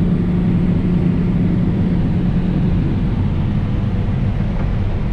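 Large diesel farm machine (combine or tractor) running steadily: a loud low rumble with a steady hum over it that fades about three seconds in.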